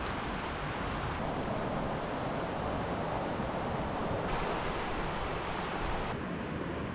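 Steady rushing outdoor noise with no distinct events. It shifts slightly in level a few times.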